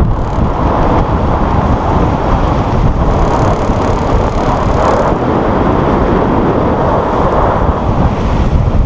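Wind buffeting the microphone, over the steady rush of choppy water along the hull of a small sailboat under way.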